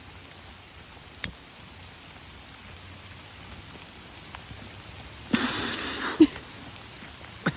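Steady rain falling, with a single sharp click about a second in and a short, louder burst of hissing noise about five seconds in.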